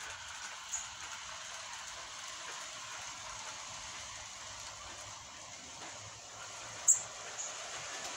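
Faint, steady outdoor hiss with a small click under a second in and a sharp, brief click about seven seconds in.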